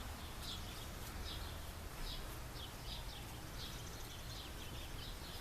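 Small birds chirping outdoors: a string of short, high chirps repeating about once or twice a second over a steady low background rumble.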